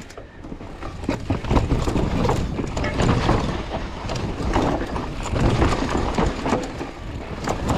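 Mountain bike ridden fast down a dirt trail: tyres rolling over loose dirt and rocks, and the bike rattling with many sharp knocks as it hits bumps, under steady wind rushing over the microphone.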